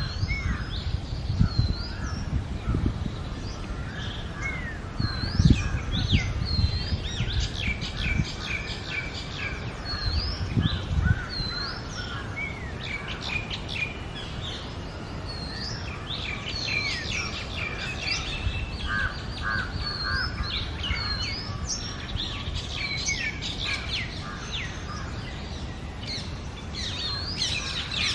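Oriental magpie-robin singing: a long run of varied clear whistles and short chirping phrases, many with quick upward-hooked notes, repeated with brief pauses throughout.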